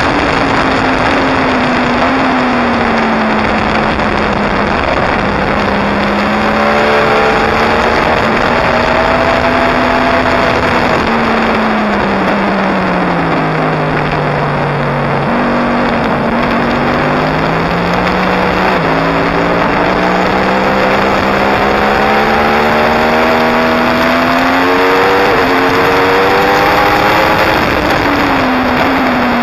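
2016 Yamaha R1's crossplane inline-four engine running at speed on a racetrack, under a heavy rush of wind on the microphone. The engine note falls steadily to its lowest about halfway through, then climbs again in steps through the gears.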